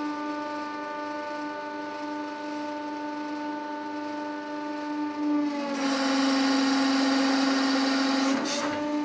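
Hydraulic press pump running with a steady hum as the ram lowers onto a Play-Doh figure. About six seconds in, as the ram squashes the clay and the pump comes under load, the hum drops a little in pitch and grows louder and hissier, with a short hiss near the end.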